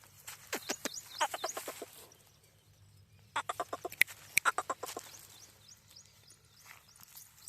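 Chickens clucking in two quick bouts of rapid, repeated notes, with small birds chirping faintly at times.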